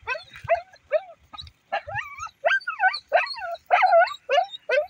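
A dog barking over and over in a rapid run, about three short, pitched barks a second.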